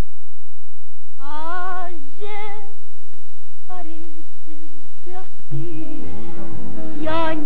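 A woman singing a tango with a wide vibrato, on a 1930s film soundtrack. The first second is only faint hiss; the sung notes start about a second in, and an orchestral accompaniment with bass joins about halfway through.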